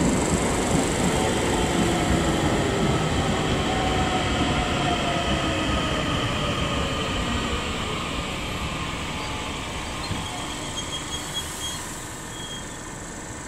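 Irish Rail 8520 class DART electric multiple unit braking to a stop at the platform, its running noise falling in pitch and fading. A few short high squeaks come near the end.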